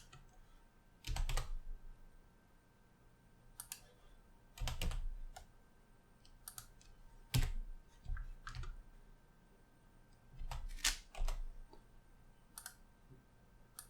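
Scattered keystrokes and clicks on a computer keyboard, coming singly and in short clusters at irregular gaps of a second or more, some with a dull thump.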